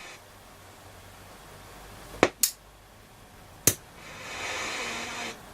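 Hacker Super Sovereign RP75 transistor radio's loudspeaker giving sharp pops, two close together about two seconds in and another a second later, then about a second of hiss that cuts off suddenly. The set is cutting in and dying off, which the repairer puts down to a bad connection.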